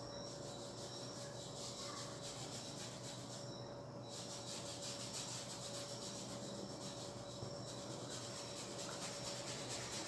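Faint rubbing of a paintbrush scrubbing oil paint onto canvas, with a thin steady hum behind it.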